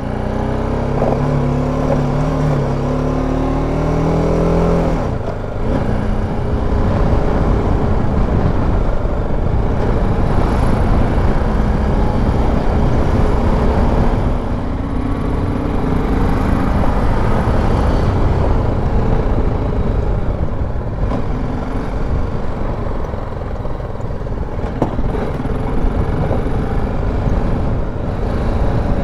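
BMW G310 GS single-cylinder motorcycle engine running under way, its pitch rising for the first few seconds and dropping about five seconds in, then running on at a lower, steadier pace under a dense low rumble of wind and road noise.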